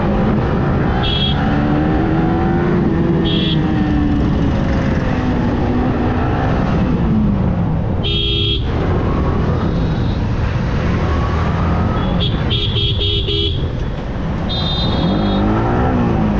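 Motorcycle engine running under way, its pitch rising and falling with the throttle, over wind rush. Vehicle horns honk through it: short toots, a longer blast about eight seconds in, and a quick string of honks near the end.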